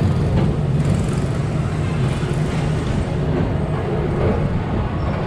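PeopleMover ride vehicle running along its track, a steady low rumble.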